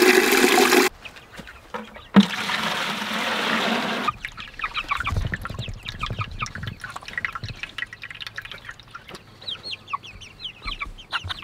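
Water running from a spigot into a plastic bucket, cut off about a second in, and a second pour of water from about two to four seconds. After that, a flock of young meat chickens cheeping steadily, many short high calls.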